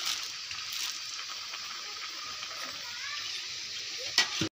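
A pot of khichuri boiling over the fire, a steady bubbling hiss. Near the end come a couple of sharp knocks, then the sound cuts off suddenly.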